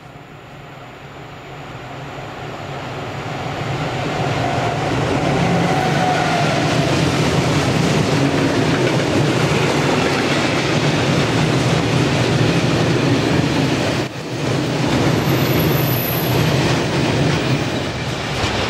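An electric locomotive hauling a long freight train of covered goods wagons approaches, growing louder over the first four seconds. The wagons then roll past in a steady, loud rumble of steel wheels on rail, which dips briefly about fourteen seconds in.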